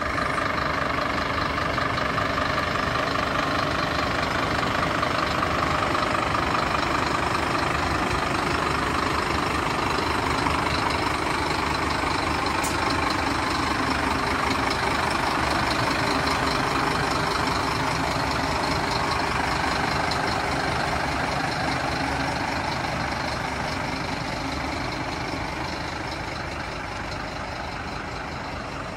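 Scania P310 tipper's diesel engine idling steadily, growing a little quieter near the end.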